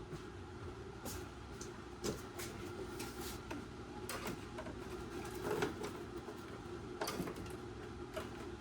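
Scattered clicks, rattles and knocks of hand work on a car's interior, such as wiring connectors and trim being pulled and handled, over a steady low hum.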